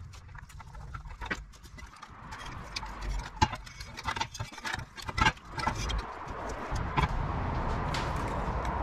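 Irregular clicks and knocks of a plastic bathroom-scale base and its load cells being handled, set down and slid on a steel workbench, busiest in the first six seconds, over a low steady background hum.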